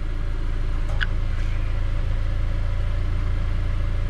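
2016 Mazda 6's 2.5-litre four-cylinder engine idling steadily, with one light click about a second in.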